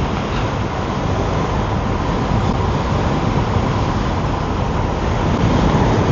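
Wind buffeting the microphone of a rider on an Emove Roadster electric scooter at speed, with road noise and a faint steady whine underneath; the rumble swells near the end.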